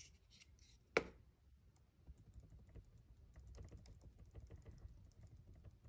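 Faint clicks and quick light ticks of a computer mouse and keys while scrolling through a document on screen, with one sharper click about a second in.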